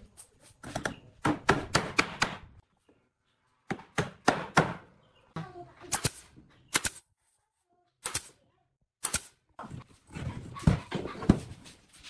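Sharp snapping shots of a pneumatic brad nailer driving nails into pine boards, mixed with wooden knocks as the boards and posts are set down and handled on a wooden workbench. The sounds come in short clusters separated by gaps of silence.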